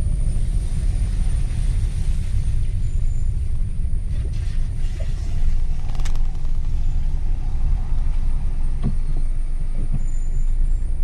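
Steady low rumble of a moving road vehicle, with a single brief click about six seconds in.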